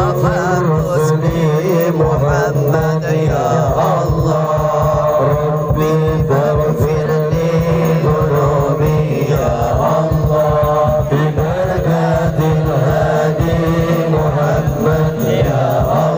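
Shalawat, Islamic devotional songs in praise of the Prophet Muhammad, sung by a man's lead voice with a group of men chanting along without a break.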